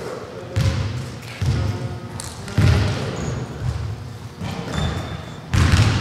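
A basketball bouncing on a hardwood gym floor, five echoing thuds at uneven intervals of about one to two seconds.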